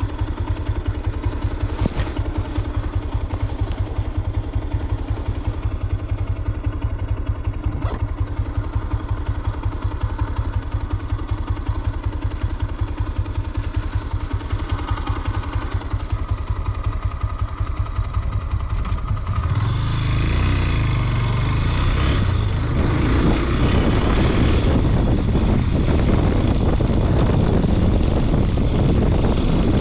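Motorcycle engine idling with an even pulse, then pulling away about two-thirds of the way through, the engine under load and wind noise rising as the bike gets under way.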